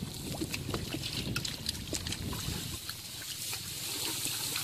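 Muddy shallow water sloshing and splashing as feet and hands churn through it, with many small scattered splashes over a steady low rumble.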